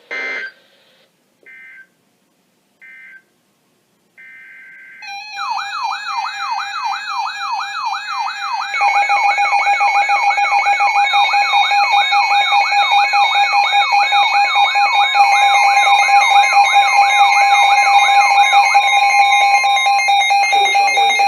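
Emergency Alert System signals: three short digital screeches of SAME header data, then a loud alert tone warbling up and down about three times a second, joined after a few seconds by a steady two-tone attention signal. The warbling stops near the end while the steady tone carries on.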